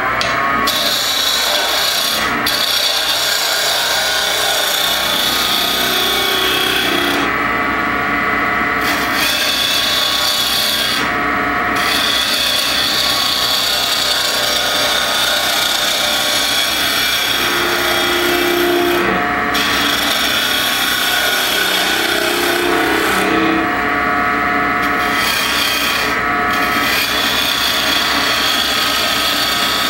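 A gouge cutting a spinning block of cocobolo on a wood lathe while profiling a domed top: a continuous scraping hiss of the cut over the lathe's steady hum. The hiss breaks off briefly several times as the tool leaves the wood.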